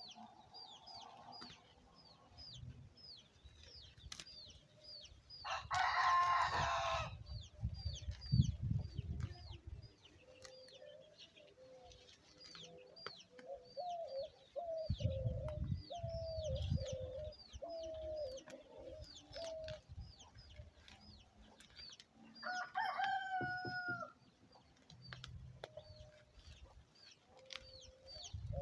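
Backyard chickens: a rooster crows loudly about six seconds in and again around the twenty-three-second mark, and hens cluck in a run of short low calls in the middle. Short, high, falling chirps repeat about twice a second throughout, with a few low rumbles.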